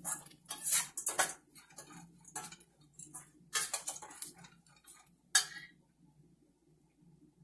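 Metal spoon scraping and clinking against a stainless steel kadai as ingredients are stirred while sautéing, in quick irregular strokes. A louder clank comes a little over five seconds in as the spoon is left in the pan, then the stirring stops.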